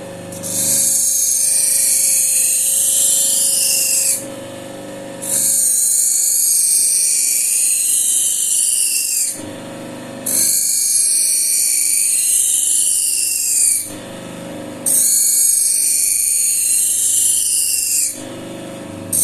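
Knife edge being honed against a spinning slotted paper wheel charged with diamonds and honing coolant: four passes of about three to four seconds each, each a loud high hiss with a whine that bends in pitch, with a fifth starting at the end. Between passes the wheel's motor keeps running with a steady hum.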